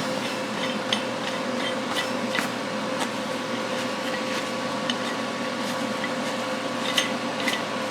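Steady low hum and hiss of a workshop, with a few light clicks and taps scattered through, such as small parts being handled.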